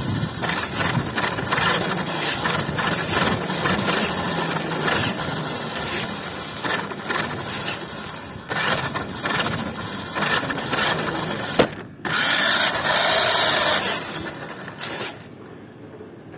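A small geared motor running with a dense rattling, clicking mechanical noise and frequent knocks. A sharp click comes a little before midway through, then a steadier stretch, and the noise drops away near the end.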